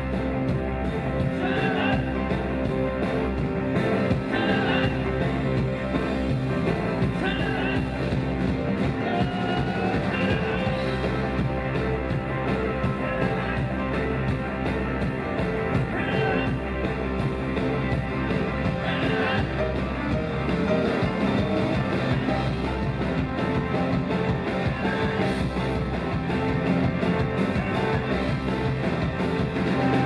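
Live rock band playing an instrumental passage: electric guitars, bass guitar, drums and keyboards.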